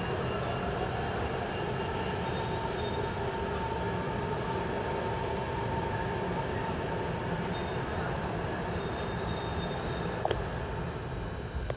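Passenger train coaches rolling along a station track, a steady rumble with thin high squealing tones from the wheels. A single sharp click about ten seconds in.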